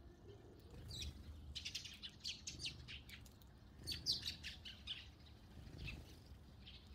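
Eurasian tree sparrows chirping: many short, high chirps in quick clusters, busiest from about a second in until near the end.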